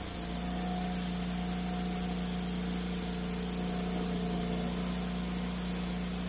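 Wood-Mizer portable bandsaw mill's engine running steadily at a constant speed.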